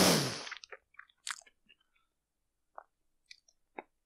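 Mouth sounds from a person with a mouthful of marshmallows: a breathy rush of air at the start, then scattered small wet clicks and smacks of chewing.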